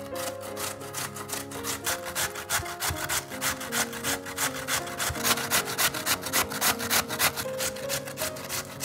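A peeled raw potato being grated on a stainless steel box grater: rhythmic rasping strokes at about three a second.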